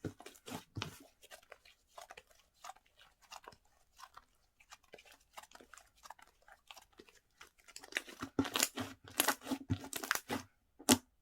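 Hands squishing and stretching a dense, chewy slime with sponge pieces mixed in, giving sticky crackles and popping clicks as trapped air bubbles burst. The clicks come thicker and louder in the last few seconds, with one sharp pop near the end.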